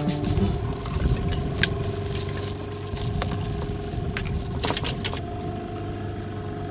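A landing net with a fish being swung into a small boat, with many quick rattles and clicks. Underneath is a steady hum from the boat's outboard motor running. The clatter stops about five seconds in.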